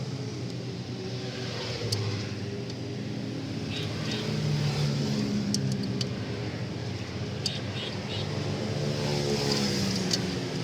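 Low steady hum of passing motor vehicles, its pitch slowly wavering, with a few short sharp metallic clicks from a wrench working loose the brake caliper bolts.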